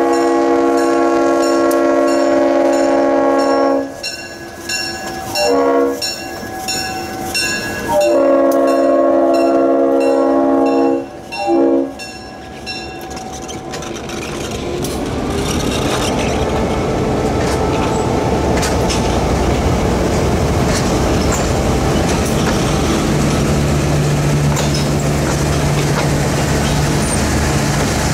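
EMD GP7 diesel locomotive's multi-tone air horn sounding four blasts, long, short, long, short, as it passes. Then its passenger cars roll by with a steady rumble of wheels on rail and light clacking over the joints.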